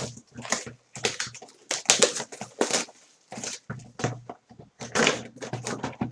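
A trading card box and its packaging being handled and opened by hand, with crinkling and rustling in quick, irregular bursts.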